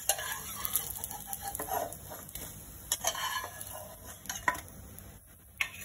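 Flat metal spatula scraping and tapping against a nonstick frying pan as browned cutlets are slid up and lifted out, with a few sharp clicks and a faint sizzle of frying oil.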